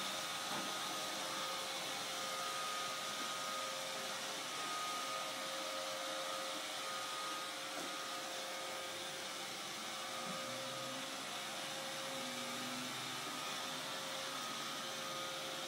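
iRobot Roomba robot vacuum running as it cleans the floor: a steady whirring hiss with a constant hum under it.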